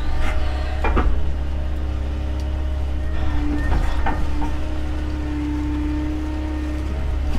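Doosan excavator's diesel engine running steadily under load while digging, with a whine that swells for a few seconds in the middle and a couple of sharp clunks, about a second in and again about four seconds in.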